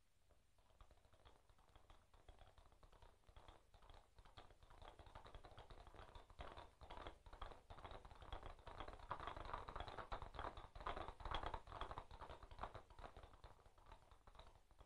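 Hoofbeats of galloping horses on stony ground: a rapid clatter that starts faint, grows louder to a peak a little past the middle, then fades away.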